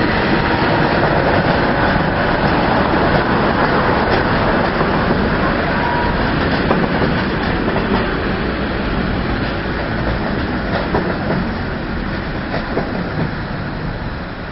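Train rolling past, its wheels clattering over the rails, the noise easing off near the end.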